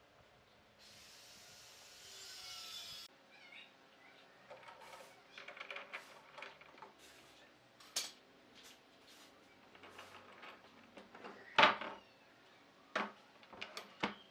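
Woodworking at the bench: a steady hissing burst of about two seconds, then wooden pieces being handled, rubbed and knocked. The sharpest knock comes about three quarters of the way through.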